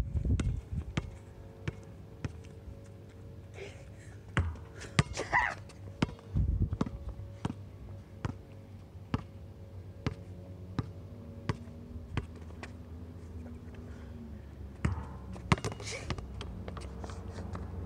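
Basketball being dribbled on a hard outdoor court, steady bounces about twice a second, with wind rumbling on the microphone.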